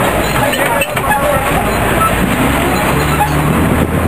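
Engine and road noise of a vehicle driving along a rough street, heard from inside it, with a low engine hum that grows clearer about halfway through.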